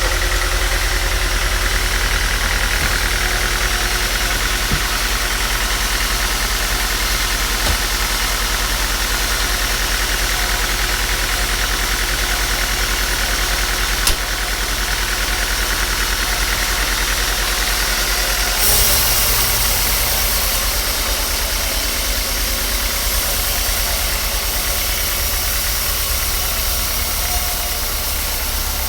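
A woodworking machine's motor running steadily with a constant low hum. A single sharp click comes about halfway through, and a hissing noise joins a little after that and continues.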